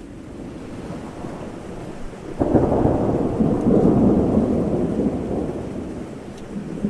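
Thunderstorm: a clap of thunder with a low rumble swelling, a sudden sharp crack about two and a half seconds in, then a loud rumble that fades over the following few seconds, over steady rain.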